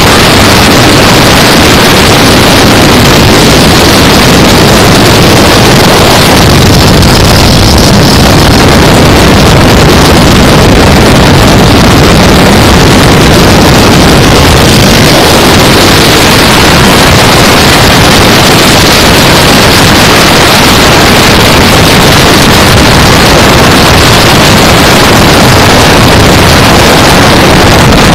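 Loud, steady rush of wind on a handlebar-mounted microphone at highway speed, mixed with the running V-twin engine of a Yamaha Road Star cruiser motorcycle.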